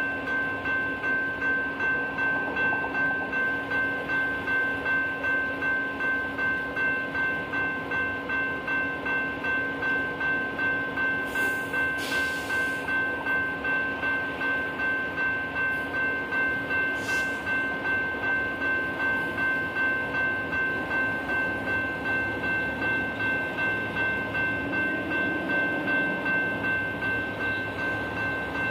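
A railroad bell ringing steadily and evenly, about one and a half to two strokes a second, over the rumble of a train. A few sharp knocks come about halfway through.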